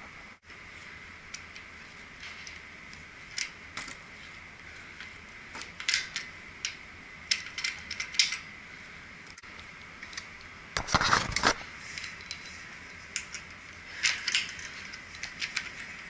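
Brass hose fitting and pliers clinking and scraping on a drain valve as the fitting is threaded on and tightened. The sound comes as short irregular metal clicks, with a louder, longer rattle about eleven seconds in.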